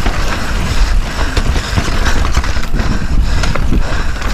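Mountain bike riding a rocky trail: wind buffeting the action-camera microphone, with tyres running over rock and dirt and the bike clattering and rattling over repeated bumps.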